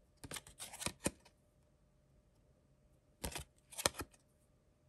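Hockey trading cards being handled and flicked off a stack by hand: short crisp clicks and slides in a cluster about a second in, and a few more around three to four seconds in.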